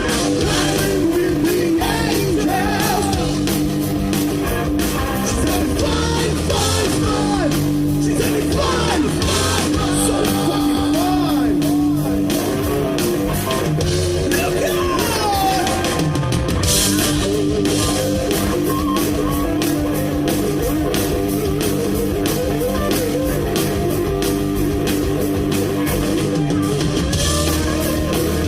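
Live rock band playing loud and without a break: electric guitars and a drum kit, with singing.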